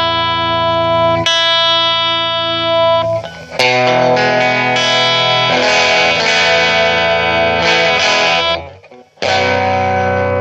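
Electric guitar played through a Trinity Tweed amp turned up to 7, sounding full chords that are left to ring. A new chord comes in about three and a half seconds in, and there is a short break before one more chord near the end.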